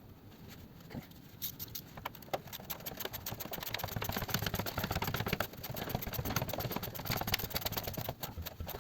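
Rain pattering hard in stormy weather: a dense, irregular patter that builds about a second and a half in, is heaviest in the second half, and eases near the end.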